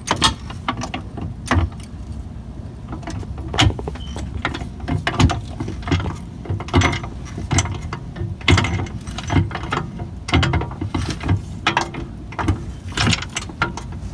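A car jack being worked to raise the car: an irregular series of metallic clicks and knocks, roughly one every half second to a second.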